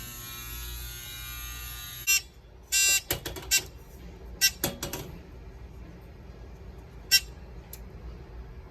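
Simplex 4903-9219 fire alarm horns sounding a steady buzzing tone that cuts off abruptly about two seconds in. A brief loud blast of the horn follows a moment later, then a few scattered clicks and knocks.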